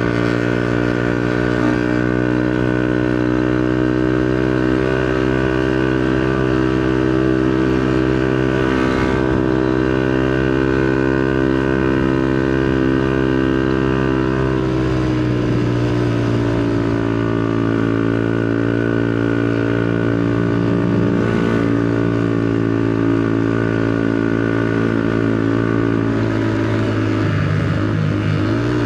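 Two-stroke underbone motorcycle engine running steadily under way, its pitch sagging about halfway through and shifting again near the end.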